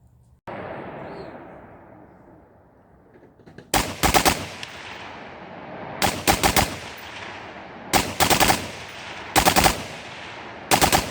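BAF base-of-fire rifle fired in five rapid strings of about three to five shots each, a second or two apart, each string echoing away.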